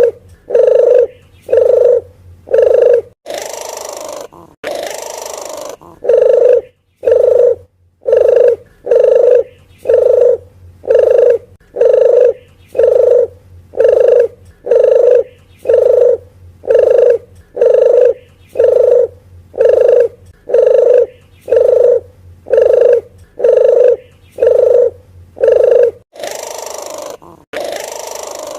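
Puter geni dove lure call: short cooing notes repeated steadily, a little more than one a second, twice broken by a longer, quieter, rasping sound.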